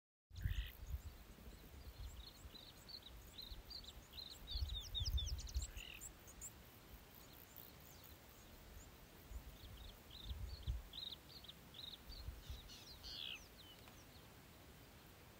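African wild dogs twittering: rapid, high, bird-like chirps in two bouts, the second after a pause of a few seconds, over intermittent low rumbles.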